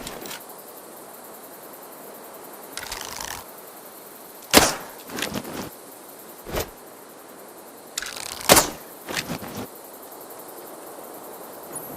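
A bow being shot twice: a sharp crack about four and a half seconds in and again about eight and a half seconds in, each followed by a few softer knocks. Rustling comes before each shot, and a single click falls between them.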